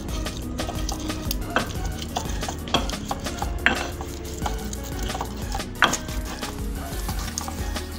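Pestle grinding and scraping a wet mash of fried chilies and tomato in a clay cobek mortar, in repeated strokes with a few sharp knocks.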